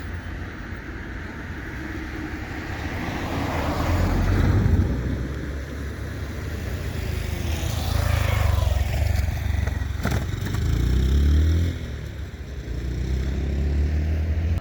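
Diesel train running past with a low engine rumble, swelling about four seconds in and again near eleven seconds, with a sharp click around ten seconds.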